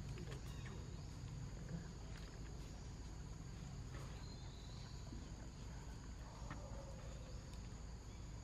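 Faint outdoor ambience: a steady high insect trill over a low hum, with scattered soft clicks and rustles.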